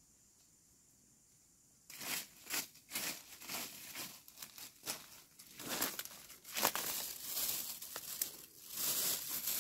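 Thin plastic carrier bag crinkling and rustling close up in irregular bursts, starting abruptly about two seconds in after near silence.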